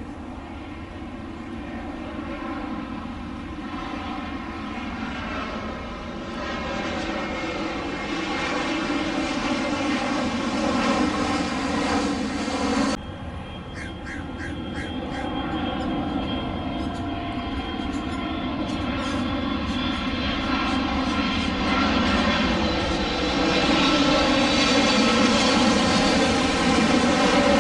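Jet airliner engines on final approach, a steady drone with a whining stack of tones. About halfway through it cuts to a KLM Boeing 777, whose GE90 engines grow louder as it comes closer overhead.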